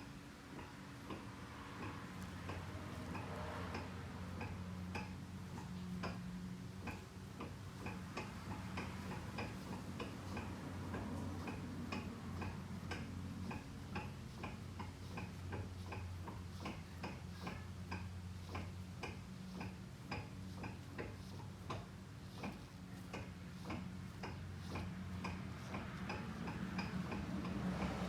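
A front CV axle knocking: sharp, evenly spaced ticks, about two or three a second, over a steady low hum. It is the typical sign of a worn CV joint.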